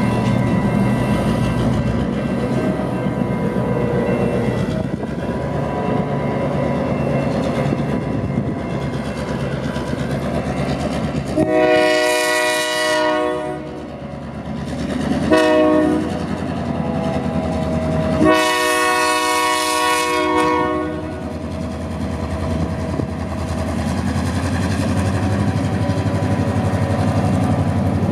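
Diesel locomotive horn sounding three blasts (long, short, long) over the steady running of an EMD SD7's 567 diesel engine. The horn chord is the loudest sound; the engine drone carries on under it and between the blasts.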